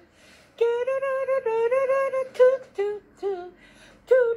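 A woman singing a short tune, holding long notes mostly on one pitch, then a few shorter, lower notes and a brief pause before she picks up again near the end.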